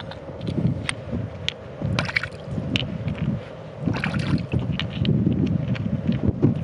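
Wind buffeting the microphone, with scattered light clicks and clinks of rough quartz and amethyst crystals knocking together as they are handled.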